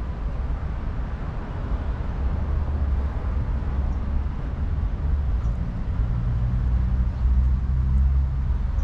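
Low engine rumble of a motor vehicle. A steady hum grows louder about six seconds in and eases off near the end.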